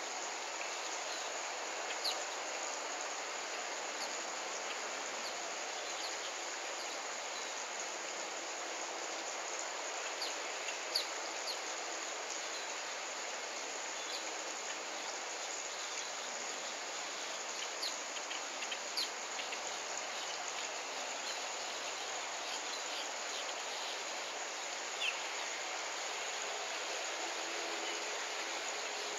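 Outdoor ambience: a constant high insect drone over a steady hiss, with short bird chirps scattered throughout.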